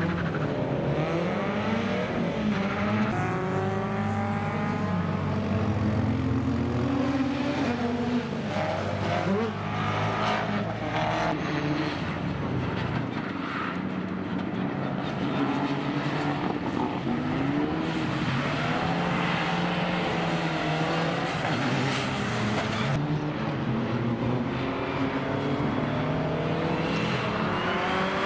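Rally car engines revving hard and falling back, rising and dropping in pitch with gear changes and throttle lifts, as several cars in turn drive a wet circuit section.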